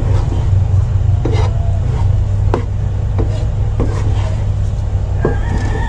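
Wooden spatula scraping and knocking against a nonstick frying pan while stirring a thick, sticky chocolate-graham yema mixture: irregular clicks and scrapes over a steady low rumble. A rooster starts crowing near the end.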